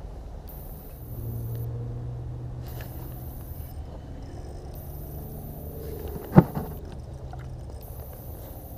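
A low, steady engine-like hum, with one sharp knock about six seconds in.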